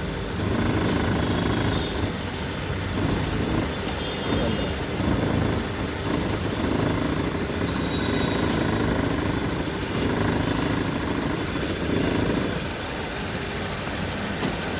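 Maruti Suzuki Ertiga petrol four-cylinder engine running at around 2000 rpm, with a steady low engine noise that swells and eases several times and dips slightly near the end. The noise is traced to a worn right-side engine mounting.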